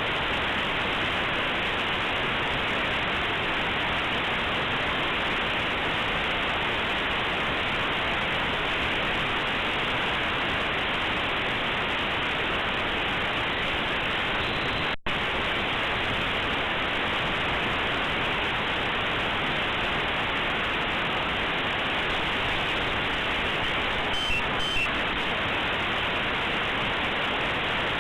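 Compressed Linux kernel image fed to aplay as raw audio, heard as a steady hiss like white noise. It has a brief dropout about halfway through and a few faint blips near the end.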